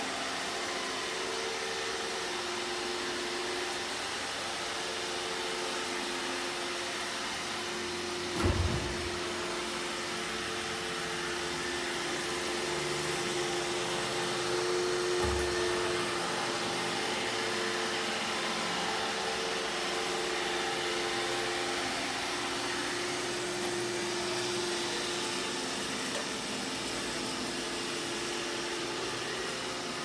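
iRobot Roomba e5 robot vacuum cleaning a wooden floor: a steady two-note motor hum over an even suction rush. A thump about eight seconds in, and a smaller one around fifteen seconds.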